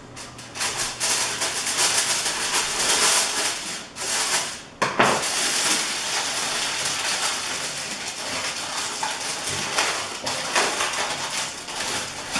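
Aluminium foil crinkling and rustling as it is pressed and tucked around a turkey in a roasting pan, with one sharper, louder crackle about five seconds in.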